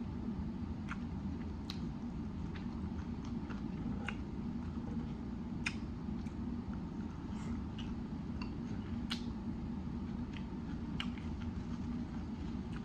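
Close-up chewing of a messy grinder sandwich: wet mouth clicks and smacks every second or so over a steady low hum.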